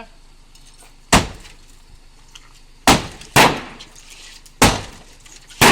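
Five heavy sledgehammer blows on a Renault Laguna, each a sharp crash with a brief ringing tail that sounds like glass breaking, the last three coming closer together.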